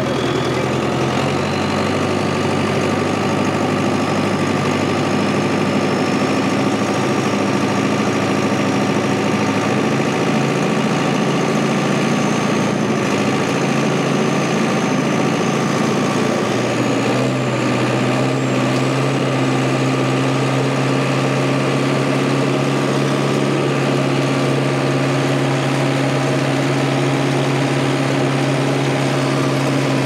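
Heavy diesel engine running steadily, its speed stepping up about 17 seconds in. A faint high whine slowly rises in pitch over the first half.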